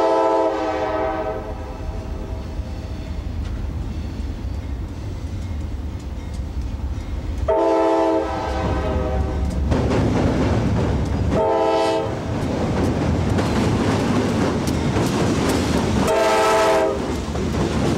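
Diesel locomotive's multi-tone air horn leading the Tropicana Juice Train, sounding four blasts in a long, long, short, long pattern. Under the horn runs the steady rumble of the moving freight train, with the clatter of wheels on the rails growing louder in the second half.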